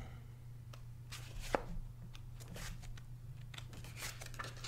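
Paper pages of a paperback guidebook being leafed through: soft rustles and small ticks, with one sharper tick about a second and a half in, over a faint steady hum.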